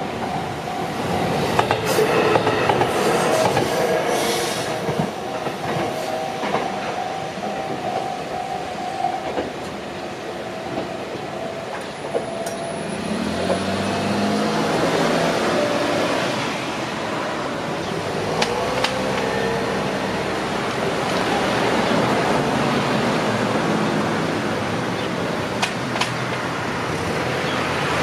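Railway level-crossing warning bell ringing steadily over a passing train's rumble and wheel clacks, then cutting off about nine seconds in. After that, cars drive over the crossing: engine and tyre noise, with engines rising in pitch as they pull away.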